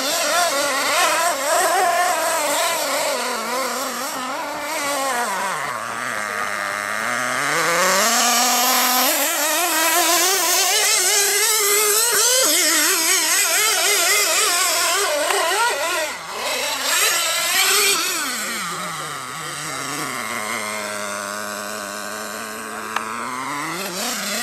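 Radio-controlled off-road buggy's motor revving up and down continuously as it drives. The pitch drops low twice, around six seconds in and again around twenty seconds, each time winding back up.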